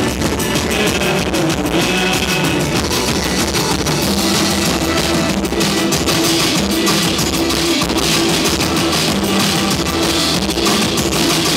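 Live rock band playing loud, drum-heavy music, with a drum kit and congas hit hard and steadily throughout.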